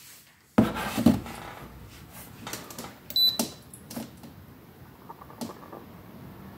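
Handheld infrared thermometer being picked up and aimed, with rubbing and light clicks of handling, and one short high beep about three seconds in as it takes a reading.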